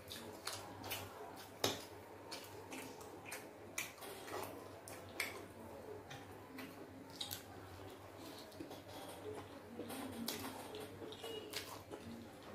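Close-miked eating: a metal fork clicking and scraping against a plate, with wet mouth sounds as spaghetti is chewed. The sharp clicks come irregularly, over a low steady hum.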